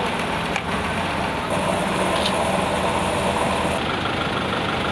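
Vehicle engines idling steadily at a roadworks site, a truck engine the likely main source.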